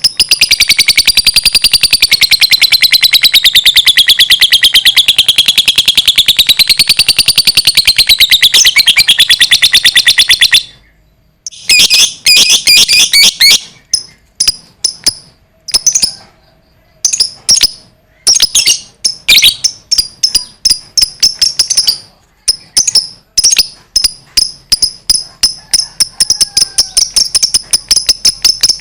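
Lovebird singing a long 'ngekek': a very fast, rapid-fire chattering trill held unbroken for about ten seconds with a wavering pitch. After a brief break it carries on in shorter, choppy bursts.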